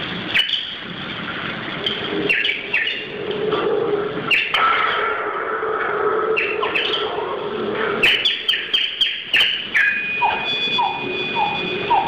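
Hand-held bird-call whistles chirping in quick rising and falling calls, playing birdsong as music, with sharp clicks and rattles from hand percussion, thickest about eight to nine and a half seconds in. Near the end one whistle holds a steady high note while short lower notes repeat.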